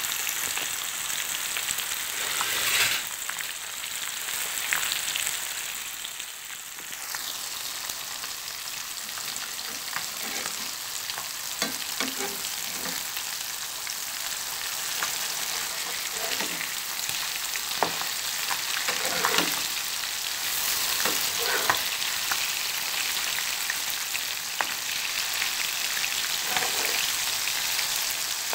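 River fish steaks sizzling as they shallow-fry in oil in a non-stick pan. A spatula scrapes and taps against the pan now and then as the pieces are turned.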